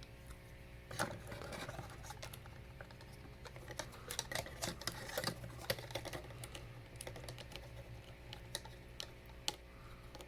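Hard plastic Lego Hero Factory parts being handled and snapped together: irregular small clicks and light rattles, busiest about a second in and again around the middle, over a faint steady hum.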